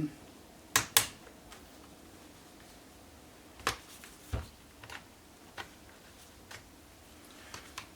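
Sharp clicks of a laptop's bottom cover snapping loose as a pry tool is worked along its edge. There are two snaps about a second in, two more near the middle, then lighter ticks at uneven intervals.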